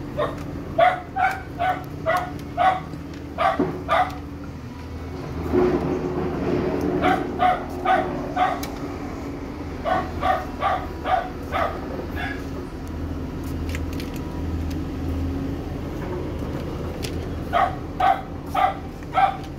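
A dog barking in quick runs of short, high barks, about three a second, four runs broken by pauses.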